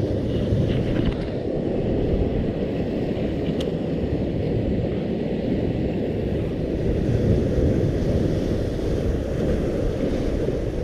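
Steady wind rumbling on the action camera's microphone over the wash of sea water around the rocks, with a faint click about three and a half seconds in.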